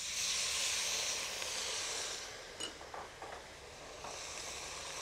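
Pan of pancetta, fennel and onion sizzling and hissing as white wine is poured into it. The hiss is strongest at first, dies down about two seconds in with a couple of faint clicks, and picks up again near the end.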